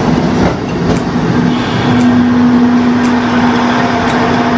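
A train running in along the platform close by: a steady engine hum with a light click from the wheels about once a second.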